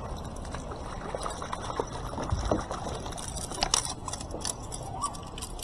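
Hooked fish thrashing at the water's surface beside a kayak, with irregular splashes, then water splashing and dripping as it is scooped up in a landing net.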